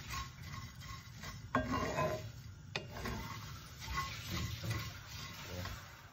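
A wooden spatula stirs and scrapes roasted peppercorns around a cast iron skillet, in irregular rustling, scraping strokes with an occasional sharp click of wood on the pan.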